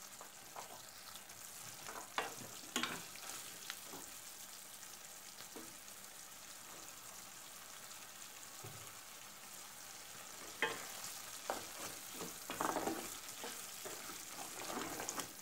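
Tomato and pepper mixture frying in a stainless steel pan with a steady faint hiss. A wooden spoon knocks and scrapes against the pan as it is stirred, a few times early on and more often in the last few seconds.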